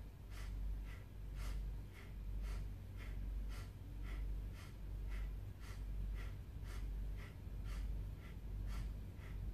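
A man breathing rapidly and forcefully through his nose, short sharp inhales and exhales in an even rhythm of about two a second, kept in time with fast alternating arm swings in a Kundalini breath exercise.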